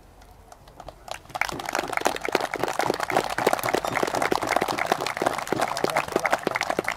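A crowd breaking into applause, a dense patter of many hands clapping that starts about a second in and keeps going.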